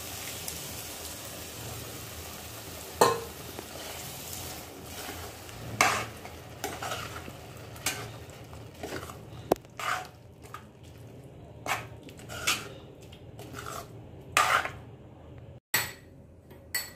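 A spoon stirring cooked white peas into sizzling onion-tomato masala in a kadhai. The sizzling hiss fades about halfway through, and the spoon knocks and scrapes against the pan a number of times.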